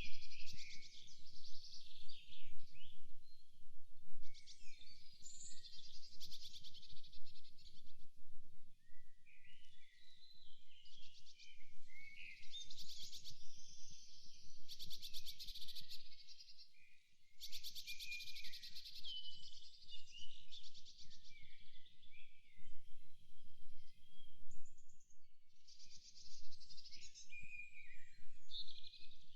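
Forest birds singing and calling, several at once, with rapid trills and short chirps overlapping throughout, over a faint low background rumble.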